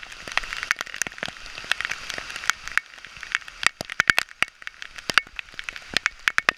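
Steady rain falling through the forest, with frequent sharp, irregular taps of raindrops striking the GoPro's housing.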